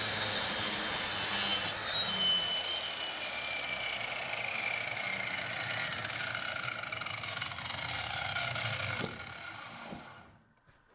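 Electric undercut jamb saw running, its blade cutting through a metal door frame, with a whine that slowly falls in pitch. It stops with a knock about nine seconds in.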